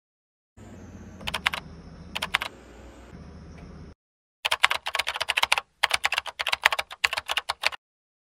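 Typing on a computer keyboard: two short clusters of keystrokes over a faint steady hum, then a fast run of keystrokes lasting about three seconds.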